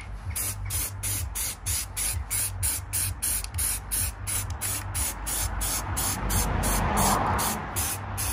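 Aerosol can of primer spraying onto an alloy wheel: a steady hiss that gets louder about six seconds in, over background music with a steady beat.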